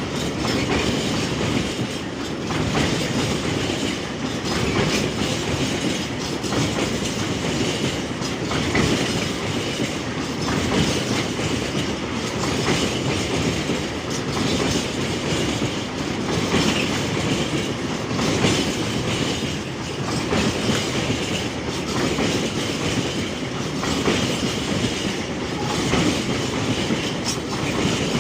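Train rolling past, wheels clicking over the rail joints in a steady run of clickety-clack, rising and easing every couple of seconds as the cars go by.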